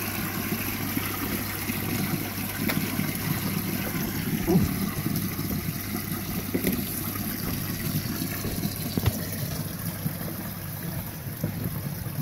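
Pond water gushing from a pipe and splashing steadily into water standing in a concrete pit, a continuous rushing splash.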